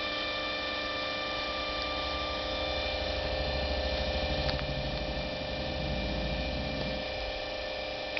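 Steady electrical hum and whine made of several fixed tones, with a low rumble swelling in the middle and easing off again; it cuts off abruptly at the very end, with a click.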